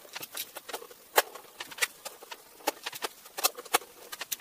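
A compact screwdriver undoing the screws on the lid of a small metal appliance case, giving a run of irregular sharp clicks and ticks, with a few louder ones.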